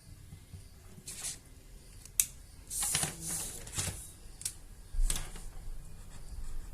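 Pen strokes scratching on paper: a handful of short scratchy strokes at irregular intervals, busiest around the middle.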